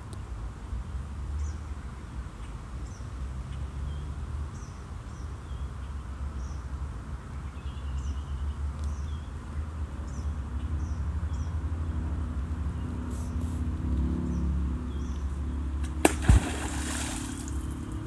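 North American beaver slapping its tail on the water as it dives: a sharp double smack near the end, followed by a second or so of splashing water. Before it, a steady low rumble and faint high chirps.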